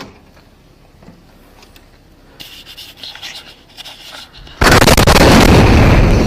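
Vehicle bomb in a parked RV detonating, picked up on a police body camera: a sudden, very loud blast about four and a half seconds in that carries on as a sustained roar, slowly fading. Before it, rustling and clatter of the wearer's gear as he moves.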